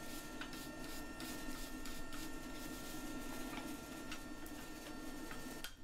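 Steel wire brush scrubbing scale off a red-hot iron bar on the anvil: light, irregular scratching strokes over a steady low hum.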